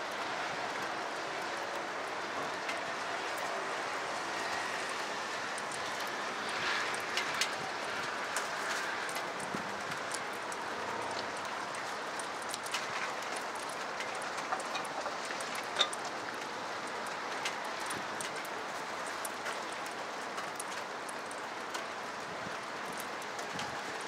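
Steady rain hiss, with scattered sharp taps of single drops landing close by, the loudest about sixteen seconds in.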